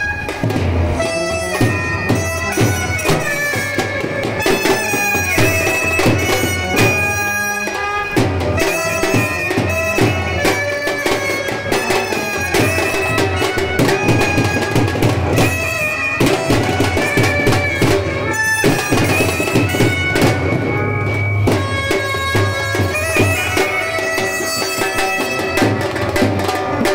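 Indian street brass band playing a melody on clarinet and trumpet over a steady drum beat.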